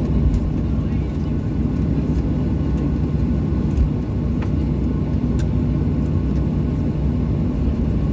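Steady low rumble of a Boeing 737-800's engines and airflow heard inside the cabin, unchanging throughout, with a few faint clicks.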